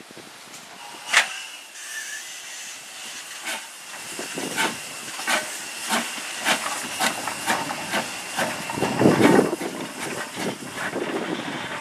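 WD Austerity 0-6-0 saddle-tank steam locomotive starting away: steady steam hiss, then exhaust chuffs from about four seconds in that come steadily quicker as it gathers speed. A sharp short sound about a second in and a louder blast of steam near the end.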